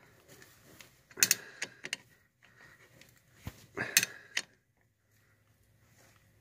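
Metal clicks and clunks of a wrench working the bolts on a car's front brake caliper, in two short bursts, a little over a second in and again about four seconds in, with a single sharp click between them.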